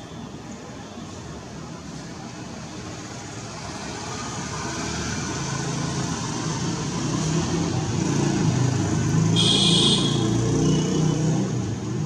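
A road vehicle passing nearby, its engine and tyre noise swelling to its loudest about two-thirds of the way through and then fading. A brief shrill high-pitched sound rises over it near the peak.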